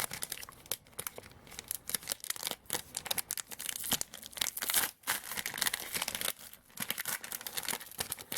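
A trading card pack wrapper being torn open and crinkled by hand: irregular crackling and tearing throughout.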